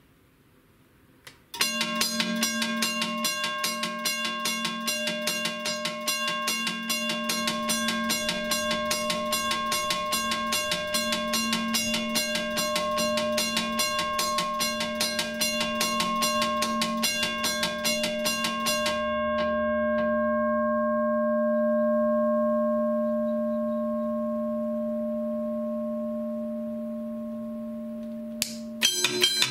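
Electric teardrop railroad crossing bell ringing: its striker hits the metal gong several times a second, with a steady ringing tone. About two-thirds of the way through the striking stops and the gong rings on, slowly fading. Just before the end a click is followed by a different-pitched bell starting to ring.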